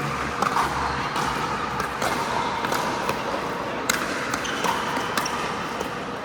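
Pickleball paddles striking the hard plastic ball: several sharp pops at irregular intervals, the sharpest about four seconds in. They sound over a steady din of the hall.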